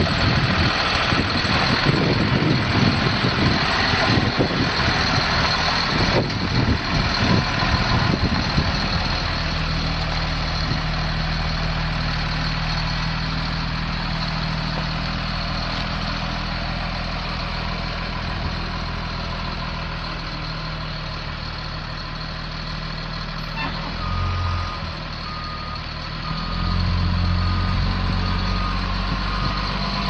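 Caterpillar C7 inline-six turbo diesel of a Blue Bird Vision school bus running, uneven for the first several seconds and then settling into a steady idle. Near the end an electronic beeper sounds repeatedly at one pitch, about one beep a second, while the engine note swells twice.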